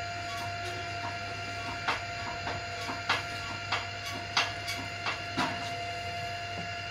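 Steady machine hum with several fixed tones, broken by about seven sharp clicks or knocks between about two and five and a half seconds in.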